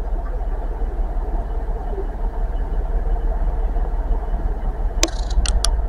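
Class 66 diesel freight locomotive's engine running as it approaches slowly, a steady low rumble. A few sharp clicks come near the end.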